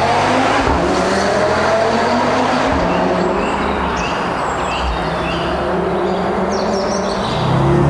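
Audi RS Q3 Sportback's turbocharged five-cylinder engine running under way, its pitch climbing slowly at first, then rising and getting louder near the end.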